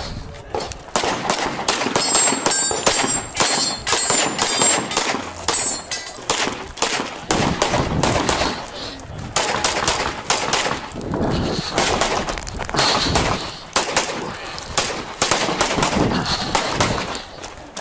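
Handgun shots fired in quick strings during a practical pistol stage, with metallic ringing from hits on steel targets in the first several seconds.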